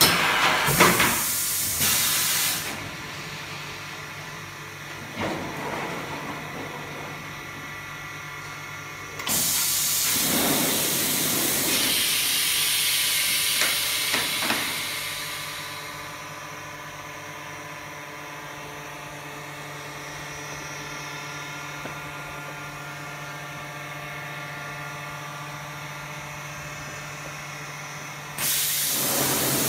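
Blister vacuum thermoforming machine running a forming cycle. A steady machine hum runs throughout, and loud rushes of hissing air come in three stretches: briefly near the start, for several seconds in the middle, and again near the end.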